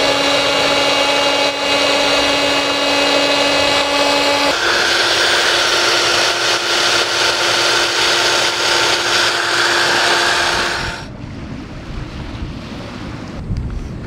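Electric air pumps running steadily to inflate an Intex two-person inflatable kayak through its valves. About four and a half seconds in the hum steps up to a higher pitch as a handheld cordless blower takes over, and it stops about eleven seconds in.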